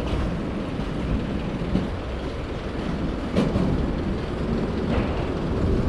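Steady low rumble of vehicle traffic on a city street, with a couple of light knocks about three and a half and five seconds in.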